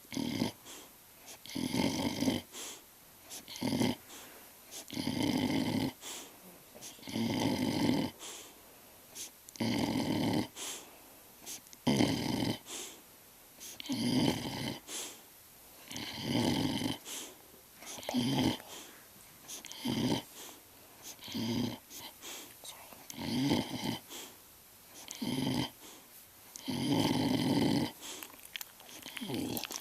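An animal snoring in a slow, regular rhythm, one snore about every two seconds, some with a grunting edge.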